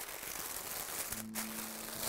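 Quiet background music over a faint hiss; a soft held low note comes in about a second in.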